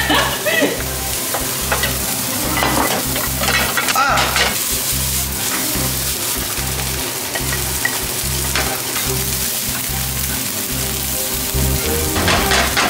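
Egg fried rice sizzling steadily in several hot skillets, stirred and scraped with wooden spoons.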